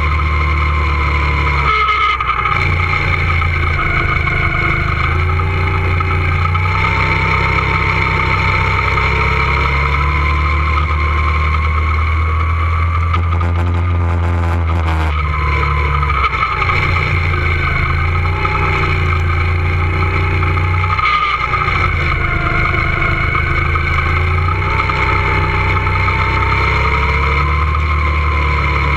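Two-seater go-kart's motor running hard, its pitch rising and falling over several seconds as the kart speeds up on straights and eases for corners. The low end drops out briefly about two seconds in and again about twenty-one seconds in.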